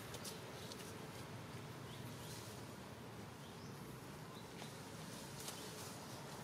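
Faint outdoor ambience: a steady hiss with a few brief, faint high chirps and clicks scattered through it.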